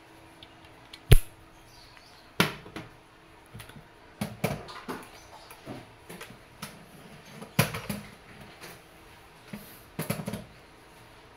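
Irregular knocks, clicks and rattles from hands handling a chronograph and adjusting its tripod head, with one sharp, loud knock about a second in.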